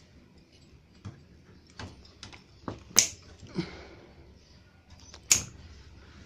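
Pliers clicking and snipping at a power supply's wiring: several short, sharp clicks, the two loudest about three seconds and five seconds in, with wires rustling between them.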